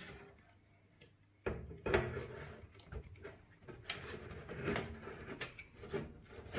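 Irregular knocks, clicks and rubbing of an AIO watercooler radiator being handled and fitted into a computer case, starting about a second and a half in.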